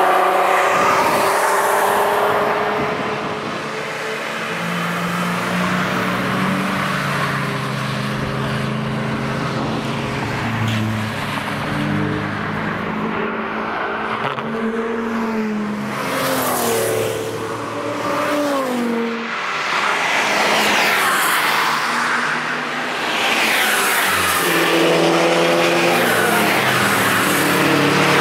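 Several Audi cars driving hard past the trackside one after another, each engine note swelling as it approaches and fading as it goes. The engine pitch holds steady at times and at others rises and falls with the throttle and gear changes.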